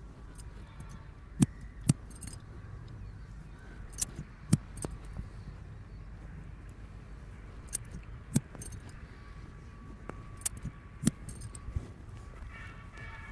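Barber's scissors snipping in short, irregular runs of two or three sharp metallic clicks, about a dozen in all.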